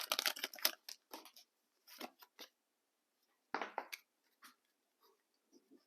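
Pokémon trading cards handled by hand: short papery slides and taps as cards from a booster pack are flipped through one by one, with a longer, louder card-slide rustle about three and a half seconds in.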